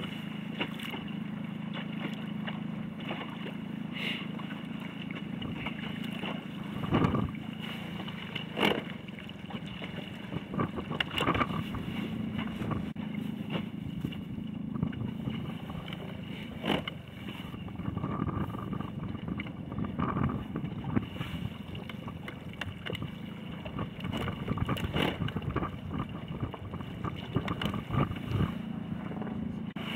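Small motorboat's outboard motor running with a steady low hum, with water slapping and splashing against the hull in irregular louder bursts.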